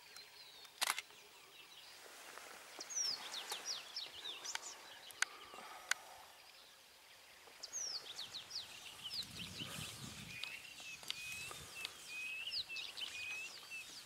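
Wild birds calling in the bush: many short, quick downward whistles, then a fast run of repeated chirps in the last few seconds. A few sharp clicks stand out, one about a second in and two more around five to six seconds.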